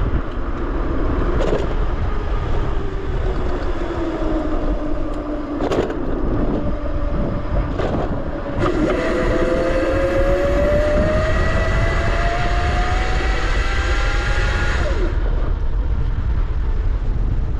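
Razor RSF650 electric motorcycle's motor whining under heavy wind rumble on the microphone while riding. The whine drops in pitch as the bike slows a couple of seconds in, then climbs steadily in pitch as it accelerates from about halfway through, fading near the end.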